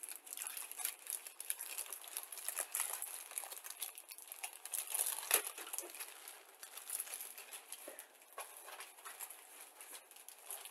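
Clear plastic kit bag crinkling and rustling as it is handled with a plastic model sprue inside, a run of irregular crackles that thins out and stops near the end.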